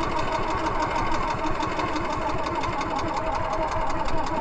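Small inboard engine of an outrigger fishing boat running steadily with a fast, even beat, with water rushing and splashing along the hull.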